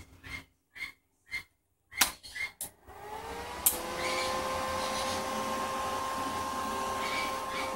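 Crest Audio CA4 power amplifier being switched on: after a few short handling clicks and knocks, its cooling fan starts about three seconds in, rising briefly in pitch, then runs with a steady whir.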